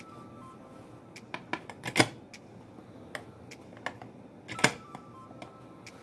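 Stainless-steel pressure cooker being shut: a run of metal clicks and clacks as the lid handles are locked and the pressure valve on the lid is set, with two louder clacks about two seconds in and again about four and a half seconds in.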